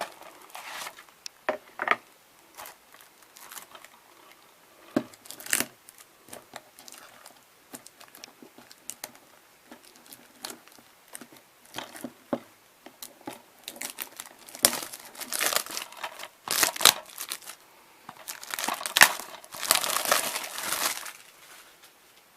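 Plastic wrapping on a DVD case crinkling and tearing as it is pulled off, amid scattered clicks of handling. The crinkling gets louder and denser for a few seconds about two-thirds of the way through.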